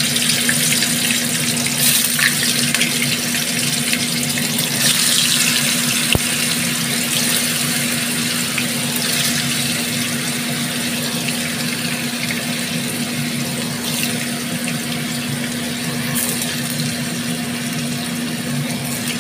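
White tofu cubes frying in hot oil in a wok: a steady, loud sizzle that flares up briefly several times as more cubes are dropped in. A steady low hum runs underneath.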